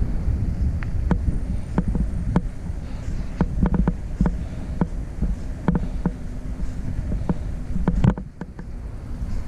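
Low steady rumble of a vehicle on the move, crossed by frequent irregular knocks and rattles. The level drops briefly about eight seconds in.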